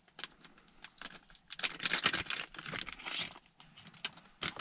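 Clear plastic bag crinkling and rustling in the hands, loudest for about two seconds in the middle, among small scattered clicks.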